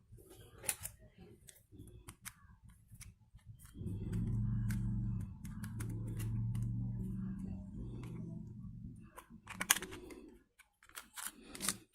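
Light clicks and taps from handling the opened mobile phone and its parts, with a low humming sound for about six seconds in the middle.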